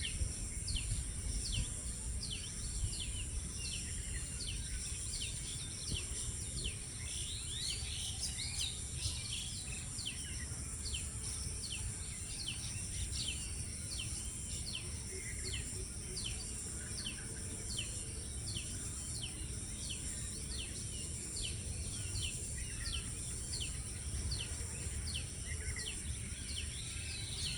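Outdoor natural ambience: a steady high insect buzz, with a bird repeating short downward-sliding chirps about one and a half times a second, over a low rumble.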